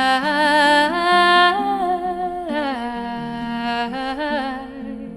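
A woman's voice singing a long wordless phrase, holding and sliding between notes with vibrato, over quietly sustained acoustic guitar notes; the voice fades out near the end.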